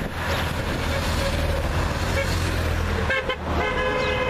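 Convoy cars and escort motorcycles driving past, with a steady traffic rumble. A horn starts sounding about three seconds in and carries on to the end.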